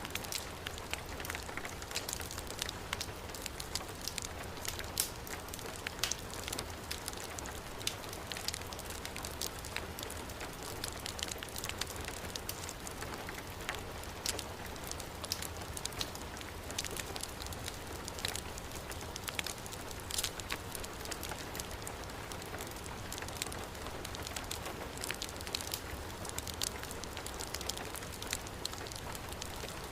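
Steady heavy rain on a surface mixed with a wood fire crackling and popping in a fireplace, with many small sharp crackles over a low rumble.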